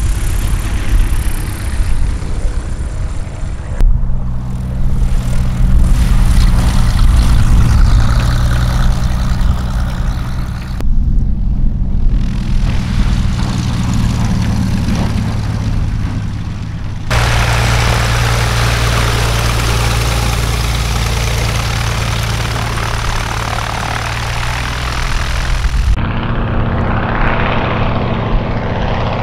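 Light single-engine propeller planes' engines running in a string of short cuts, each a steady propeller drone that changes abruptly in pitch and loudness at every cut. The cuts cover a red high-wing taildragger and a Cessna high-wing taxiing, then near the end two biplanes flying past.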